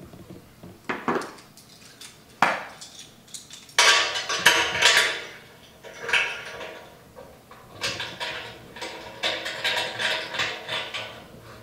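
Stainless steel sample tap and tri-clamp fittings clinking and knocking against each other and the steel tank as they are fitted by hand, with short metallic rings; a thick run of clinks comes about four seconds in, and more follow near the end.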